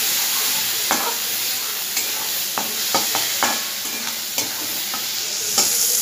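Onions and chopped tomatoes sizzling in hot mustard oil in a kadhai, with a steady hiss. A metal spatula stirs them, scraping and knocking against the pan about six times at irregular intervals.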